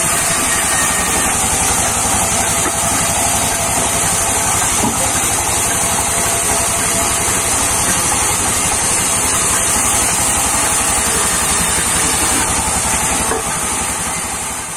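Sawmill band saw running steadily: a constant high hiss over a low, even hum from its drive. It fades out near the end.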